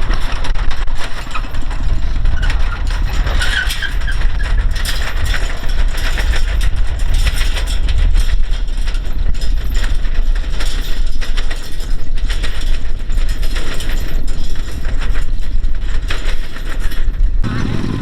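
Farm machine's engine running steadily with a low rumble and constant mechanical clatter, changing abruptly near the end.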